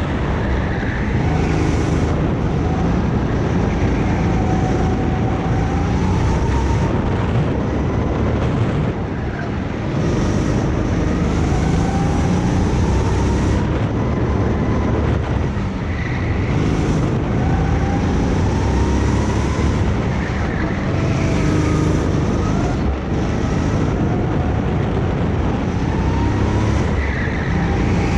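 Go-kart engine running hard through laps, its pitch rising on each acceleration and dropping off again every few seconds, over a loud rushing noise.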